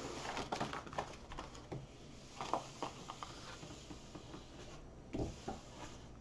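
Rustling and crinkling of a diamond painting canvas and its plastic release sheet as it is turned over and smoothed flat by hand on a wooden table, with scattered small clicks in the first few seconds and a soft thump about five seconds in.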